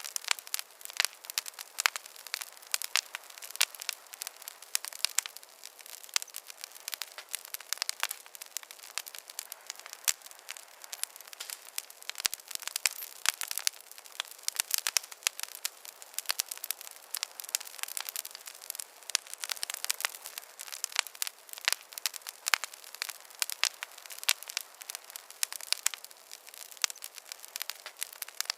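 Wood fire crackling in a fireplace: many sharp pops and snaps at irregular intervals over a soft hiss.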